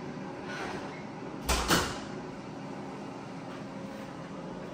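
An interior door shutting, two quick knocks about a second and a half in with a dull thud.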